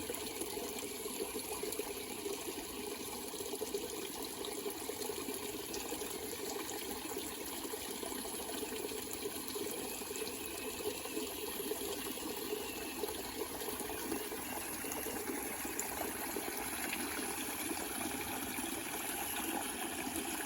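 Small waterfall running, water pouring and splashing over rocks in a steady, unbroken rush.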